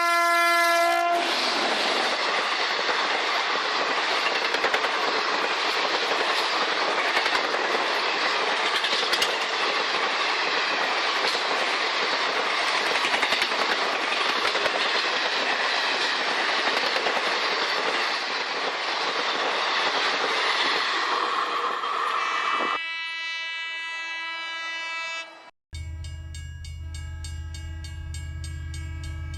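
A train horn sounding briefly, then a train running past with loud, steady rail and wheel noise for about twenty seconds. Near the end a train horn blows again, sustained, and after a short break a different, deeper horn chord sounds.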